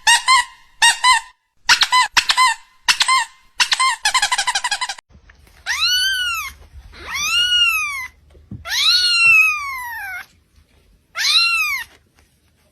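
Kitten calling: quick high squeaks and chirps for the first few seconds, then four long meows that rise and fall in pitch.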